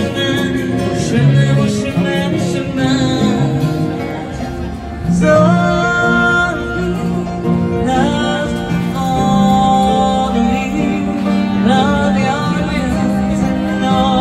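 A woman singing a song live into a microphone, accompanied by a strummed acoustic guitar, both amplified through PA speakers. The melody has long held notes.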